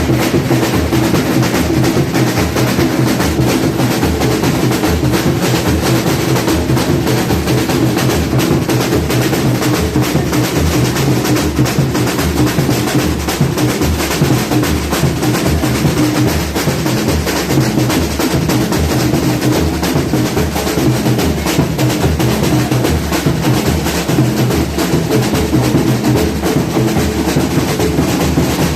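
Samba batucada percussion ensemble (bateria) playing a dense, continuous groove: rolling snare drums over steady deep drum beats.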